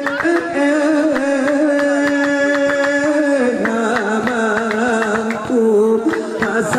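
Didong Gayo performance: a male lead singer holds a long, wavering melodic line that drops in pitch about three and a half seconds in. Underneath it the circle of performers keeps a quick, steady beat of hand claps and slaps on small hand pillows.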